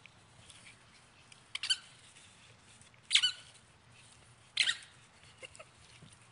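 Cavalier King Charles Spaniel puppy giving three short, high-pitched yips while playing, about a second and a half apart.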